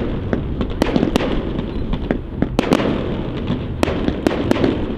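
Aerial fireworks display: an irregular run of sharp bangs from bursting shells over a continuous rumble and crackle of further bursts.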